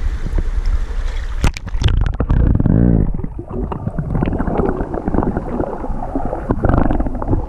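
Sea water heard through a GoPro action camera held underwater: muffled, low churning and gurgling with scattered knocks. The camera plunges in with a splash about a second and a half in, and the sound goes dull and bassy from then on.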